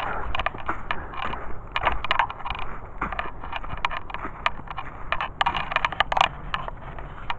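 Footsteps in snow boots on a wet trail: a run of irregular crunching and scraping steps.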